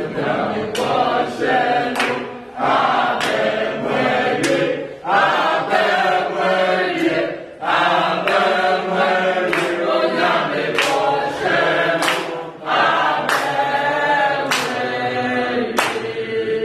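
A group of people singing a jubilant chant together in chorus, with sharp claps about once a second.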